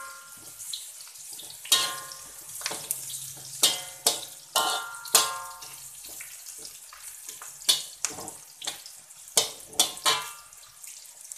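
A metal spatula scraping and clanking against a metal wok during stir-frying. Each of about ten strikes leaves the wok ringing briefly, over the sizzle of garlic, green chillies and dried anchovies frying in oil.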